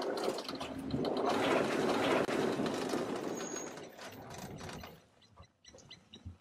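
Water splashing as animals run through a shallow river, a loud churning rush that fades away about five seconds in.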